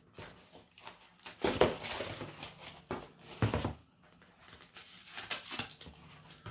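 Cardboard mailer box and its packing being opened and rummaged through: irregular rustling and scraping, loudest about one and a half seconds in and again about three and a half seconds in.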